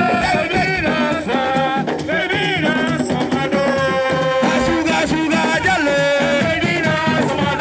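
Music: a song with singing over a steady rhythmic backing with a shaker.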